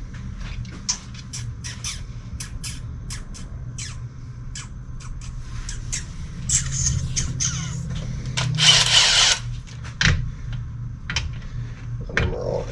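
Irregular clicks and clinks of hand tools and metal parts being handled on a transmission, over a steady low hum. About two-thirds of the way through comes one harsh rasping burst lasting about a second.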